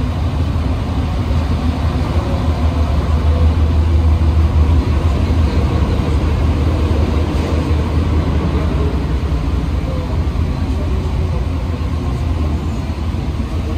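Inside a rubber-tyred Alstom NS-93 metro car running between stations: a steady, heavy low rumble from the running gear that grows to a peak about four seconds in, then slowly eases.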